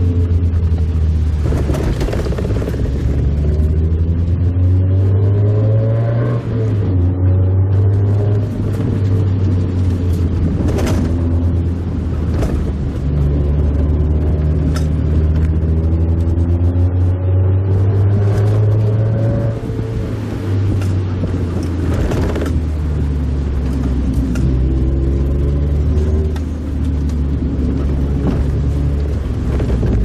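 Mazda Roadster (MX-5 Miata) four-cylinder engine heard from inside the open-topped car while driving, its note rising and falling again and again as it pulls and eases off. A few sharp knocks are heard along the way.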